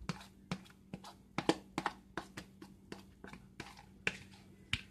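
A fork tapping and scraping against plastic mixing bowls while mashed banana mixture is scraped from one bowl into another: a run of light, irregular clicks.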